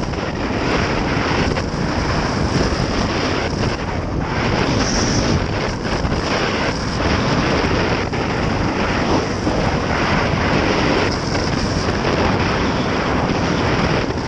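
Wind buffeting the action camera's microphone at riding speed, over the running single-cylinder engine of a 2008 Honda XR650L dual-sport motorcycle; a steady, loud rush.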